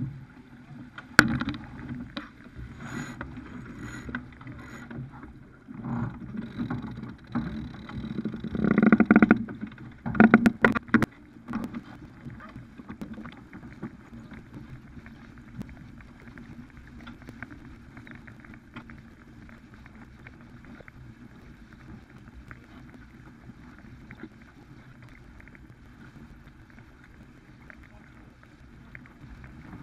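Farr 280 sportsboat going through a tack under sail: a run of sharp knocks and clatter from the deck gear in the first dozen seconds, loudest about 9 to 11 seconds in. After that comes a steady rush of water along the hull and wind.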